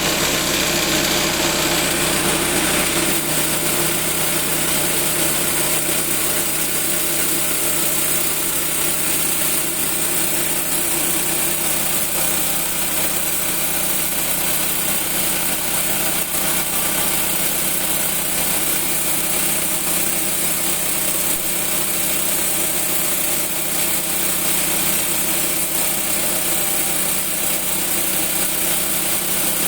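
Sorting sieve machine running steadily: a constant machine hum under a broad shaking, rattling noise.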